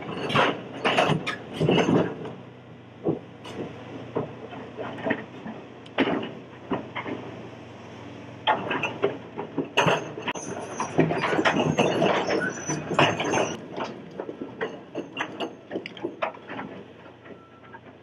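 Komatsu hydraulic excavator working a pile of large riprap stones: rocks clattering and knocking against each other and the bucket in irregular bursts, over the steady hum of the machine's engine. The clatter thins out near the end.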